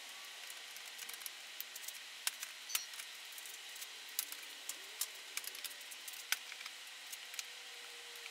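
Scattered light clicks and taps of a clip removal tool prying plastic push clips out of a plastic radiator cover, over a faint steady hiss.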